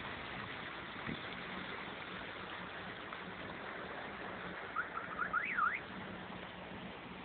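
Steady rush of wind and water from a boat under way on the lake, with a faint low engine hum. About five seconds in comes a quick run of short rising chirps and then one fast up-and-down whistle-like sweep, the loudest sound, lasting about a second.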